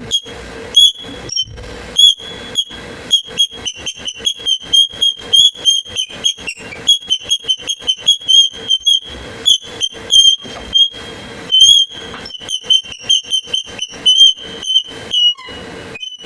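A stool squeaking over and over as someone moves on it: short, high-pitched squeaks, about two or three a second in an uneven rhythm.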